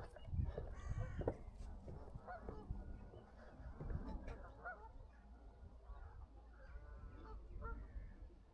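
Geese honking, a scatter of short repeated calls from several birds, faint over a low steady rumble.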